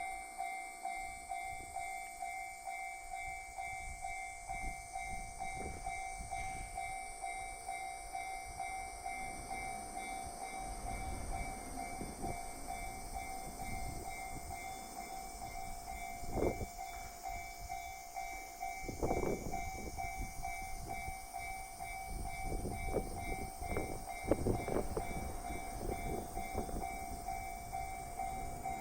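A railway level crossing's electronic warning bell rings steadily and evenly. A train approaches with a rising rumble, and from about two-thirds of the way in it passes with a run of wheel clacks.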